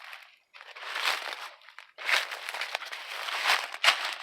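Footsteps crunching and rustling through dry leaves and litter on the ground, in three long spells with short pauses between, and a sharp snap near the end.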